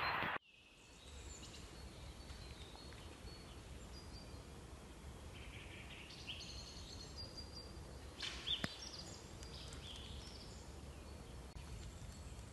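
Quiet woodland ambience with faint, scattered bird calls and chirps, the clearest about eight and a half seconds in, over a low steady background noise. A louder noise cuts off abruptly just after the start.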